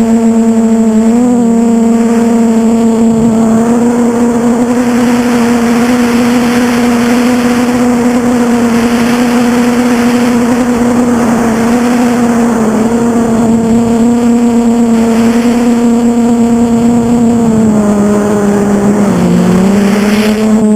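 Quadcopter's electric motors and propellers running with a steady, loud buzzing hum that dips slightly in pitch now and then, with a rushing wind noise swelling and fading through the middle as it flies.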